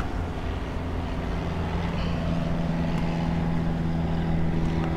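A boat engine running steadily, a low drone with a few steady tones that firms up about a second in, over wind and surf noise.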